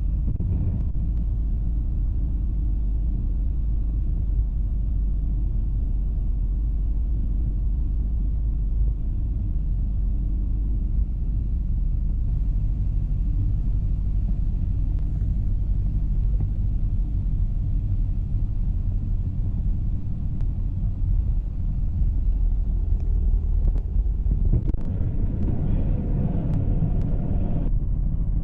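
Steady low rumble of a motorglider in operation, engine and airflow noise as heard on board.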